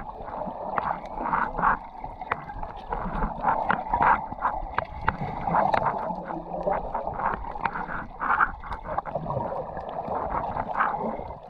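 Muffled underwater sound through a camera's waterproof housing: water sloshing and gurgling against the camera as it moves, with many sharp clicks scattered throughout.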